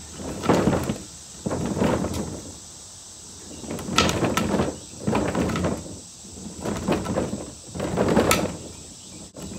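Large plastic wheeled trash cart tipped back on its wheels and rolled back and forth, its wheels rumbling and rattling over the ground in about six or seven rough passes. It is being tried as a thunder sound effect, and it fits: a low, deep rumble like a distant thunderstorm.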